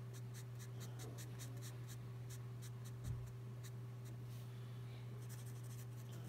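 Twin-tipped marker scratching faintly over paper in quick, short repeated strokes as an area of the picture is filled in, over a steady low hum. A small soft knock about three seconds in.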